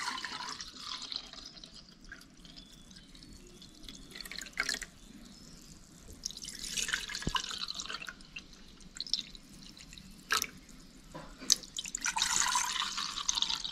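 Solkadhi, a kokum and coconut-milk drink, being poured into hammered steel tumblers: two stretches of splashing liquid, one past the middle and one near the end, with a few sharp clicks in between.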